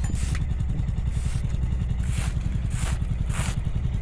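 A fingertip scraping through frost on a motorcycle seat in five short strokes, over an idling engine.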